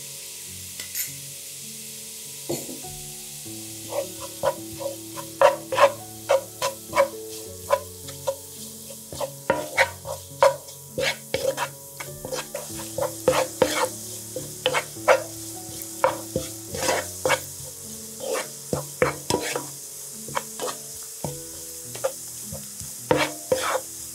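Hot oil sizzling in a pan as gochugaru (Korean chili flakes) is stirred in, with a steady hiss throughout. From about four seconds in, a utensil scrapes and knocks against the pan in quick irregular strokes, roughly two a second.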